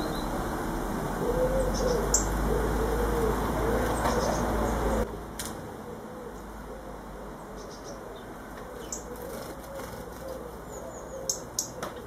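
Small garden birds, robins and chaffinches, flapping their wings as they fly on and off a seed-covered bird table, with a few short sharp high ticks or chirps. The background hum drops abruptly about five seconds in.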